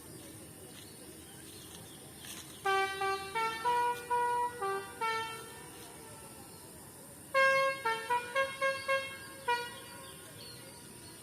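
Basuri 'telolet' multi-note horn with top-mounted trumpets, fitted to a boat, playing two short tunes of quick stepped notes a couple of seconds apart, the second starting the loudest.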